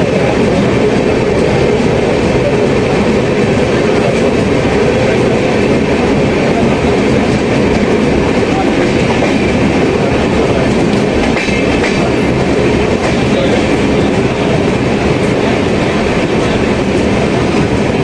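Train running noise close up: a loud, steady rumble and clatter of steel wheels on rails as a train runs alongside a rake of open freight wagons.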